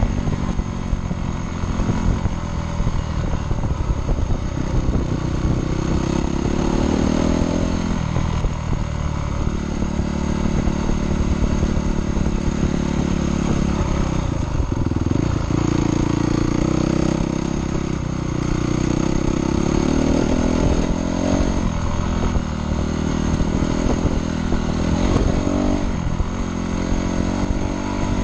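Dirt bike engine running under way on a dirt trail, its revs rising and falling with throttle and gear changes.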